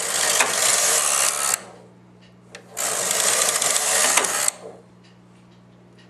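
Silver Reed SK840 knitting machine carriage sliding along the needle bed twice, each pass a second and a half or so of rattling clatter, while it knits a row of weaving pattern with the computer-driven needle selection working. A steady low hum continues between the passes.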